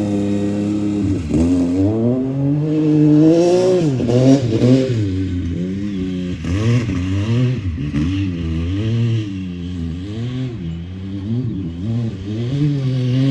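Yamaha YXZ1000R side-by-side's three-cylinder engine revving up and dropping back again and again as it is driven hard, with a brief scrabbling hiss from the spinning small rear tires a few seconds in.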